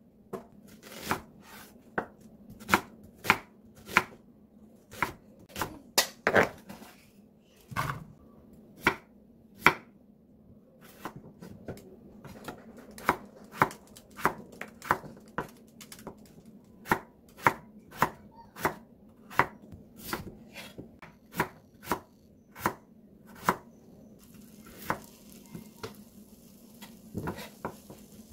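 Chef's knife slicing peeled potatoes on a wooden cutting board, each cut ending in a sharp knock of the blade on the board, about one or two a second, with a short pause near the middle.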